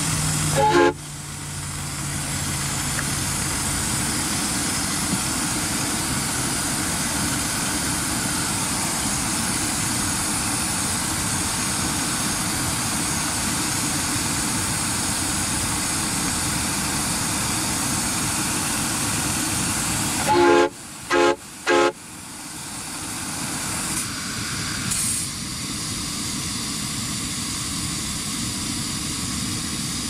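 Miniature live-steam locomotive's whistle: one short toot about a second in, then three short toots in quick succession about two-thirds of the way through, over the steady hiss of the engine.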